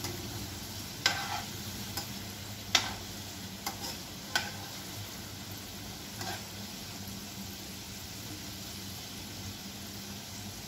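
Modaks deep-frying in hot oil in a metal kadhai, a steady sizzle. A metal slotted spoon stirring them clinks sharply against the pan about half a dozen times in the first six seconds.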